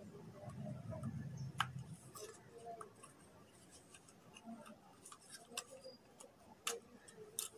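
Steel dissection instruments clicking and ticking against each other and the plastic kit tray as they are handled and slotted back in: scattered sharp clicks, the loudest about a second and a half in and twice near the end, over a low rumble of handling in the first two seconds.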